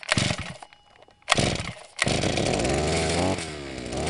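Two-stroke chainsaw revved in two short blasts, then held at a longer rev that climbs in pitch, drops back about three seconds in and picks up again.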